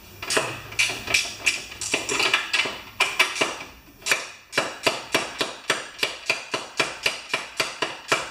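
Socket ratchet clicking as a half-inch bolt is backed out: irregular clicks at first, then quick even clicks at about five a second from about halfway through.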